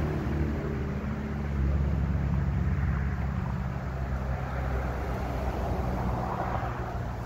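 A steady low engine hum, a motor running continuously, growing a little louder about a second and a half in.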